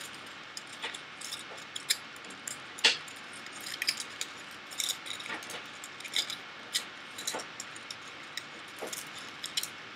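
Aluminium foil crinkling in irregular small crackles and clicks as it is pressed and twisted around fingertips: foil wraps holding nail-polish-remover-soaked cotton on the nails. The sharpest crackle comes about three seconds in.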